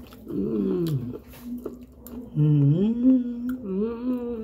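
A person humming with closed mouth in two phrases: a short falling one in the first second, then a longer, wavering tune from about halfway through.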